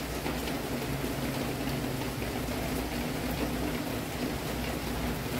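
Heavy monsoon rain falling steadily on dense trees and foliage, a constant hiss with faint scattered drips.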